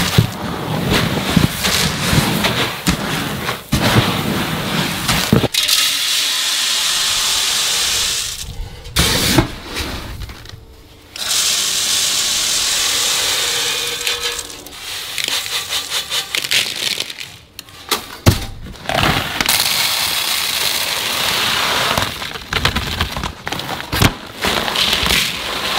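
Dry mixed grain feed of corn, wheat, oats and soybean meal rustling as it is stirred by hand in a plastic tub, then scooped and poured into a feeder, with scattered knocks. Near the end, crushed oyster shell pours rattling from a bag into a feeder pan.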